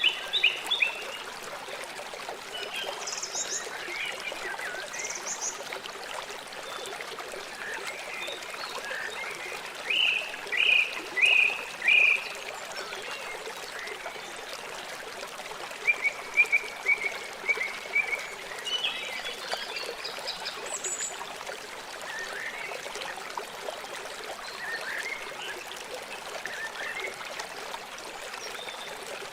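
River water flowing with a steady rushing sound. Short chirping animal calls come and go over it, loudest in a few quick calls about ten to twelve seconds in.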